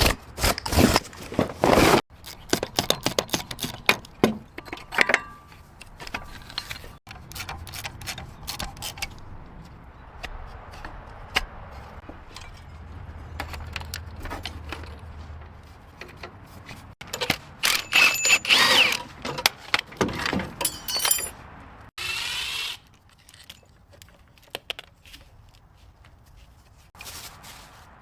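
Clinks, knocks and scrapes of hand tools at work, in several short clips joined by abrupt cuts.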